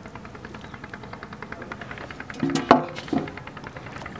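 A small engine running with a fast, even knocking rhythm. A sharp knock on wood comes about two and a half seconds in.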